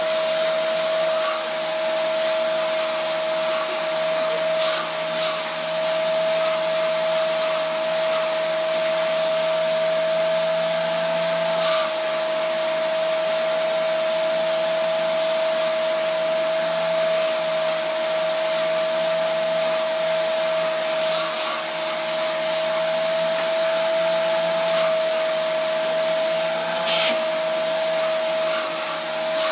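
Vacuum cleaner running steadily with a constant whine, its nozzle drawn over a shedding Siberian husky's coat to pull out loose fur.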